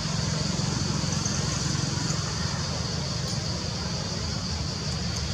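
Steady outdoor background noise: a low rumble under a continuous high-pitched hiss, with no distinct events.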